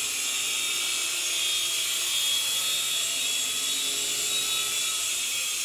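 JJRC SY003B Captor micro coaxial RC helicopter in flight: its small electric motors and twin rotors give a steady high whine.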